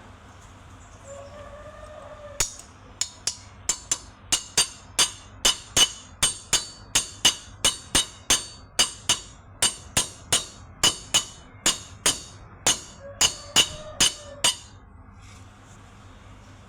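Hammer striking metal in a steady series of about thirty blows, two to three a second, each with a short metallic ring. The blows start a couple of seconds in and stop near the end.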